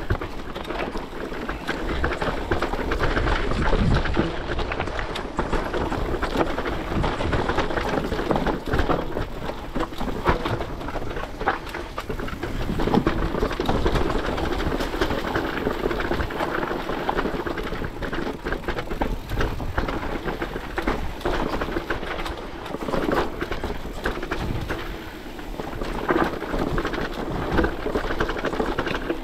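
Mountain bike rolling down a rocky dirt trail: tyres rumbling over dirt and rock, with a constant clatter of rattles and knocks from the bike over the bumps.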